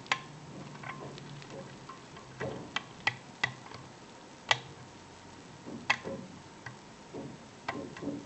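Metal pick tool clicking against the pins inside a 5-pin Evva euro cylinder lock as it is being picked with a hook and tension bar: a dozen or so sharp, irregular metallic clicks.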